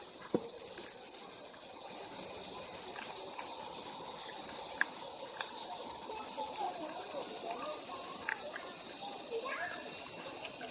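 A chorus of insects, most likely summer cicadas, making a steady high-pitched drone without a break.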